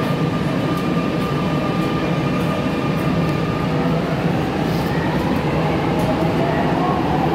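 Buenos Aires Subte Line E metro train pulling out of a station, heard from inside the car: a steady rumble of wheels and running gear. In the second half a motor whine rises in pitch as the train picks up speed.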